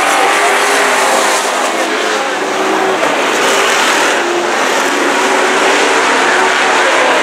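Dirt-track race trucks running hard around the oval, a steady dense engine noise whose pitch wavers up and down as the pack laps.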